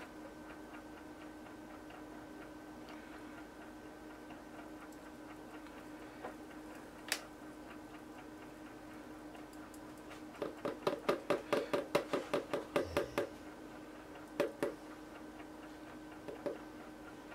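Rapid light tapping of plastic on plastic, about six taps a second for some three seconds, as the lye container and strainer are knocked to shake the last of the lye water through while it is strained. A few single taps follow near the end, over a faint steady hum.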